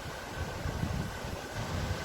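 Sea surf with a steady wash of water and wind buffeting the microphone in an uneven low rumble.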